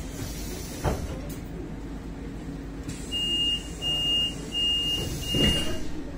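Door-closing warning inside a Solaris Urbino trolleybus: four half-second electronic beeps at one high pitch. There is a thump about a second in and another near the end, over the vehicle's low steady hum.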